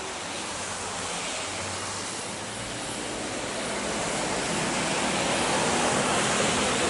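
Jet airliner engines: a broad rushing roar that grows steadily louder as the aircraft draws closer.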